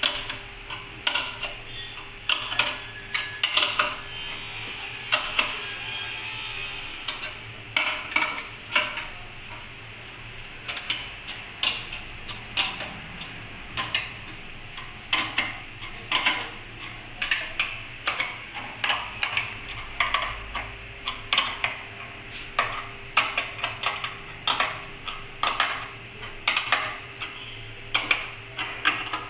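Irregular metallic clicks and knocks as the clamps and fittings of a hydraulic butt fusion machine are handled and an HDPE pipe is set in them, over a faint steady hum.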